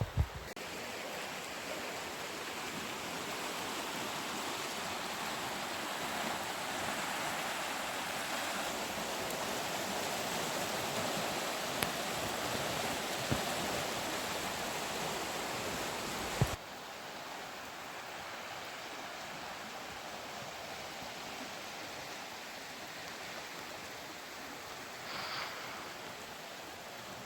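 Steady hiss of rain falling, with no horn or engine heard; it drops abruptly to a quieter hiss a little over halfway through.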